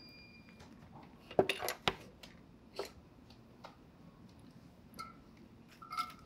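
Scattered light clicks and taps of hands handling wires, a metal alligator-clip helping hand and a 3D-printed plastic blaster housing while a wire is fitted onto a switch terminal for soldering, with a cluster of clicks about a second and a half in.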